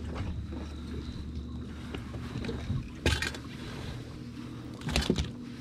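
Knocks and clunks on a fishing boat's deck as a landing net with a fish is brought aboard, one sharp knock about three seconds in and another near the end, over a steady low hum.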